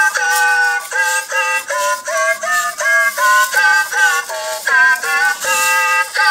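Anki Cozmo toy robot singing a melody in its high synthesized voice, a quick run of short notes changing about three times a second.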